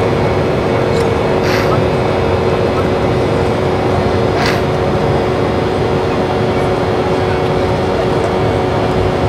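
Cabin noise of an Embraer 195 jet moving on the ground: a steady drone of its GE CF34 turbofan engines, with a few steady tones over an even rush of air and rolling noise.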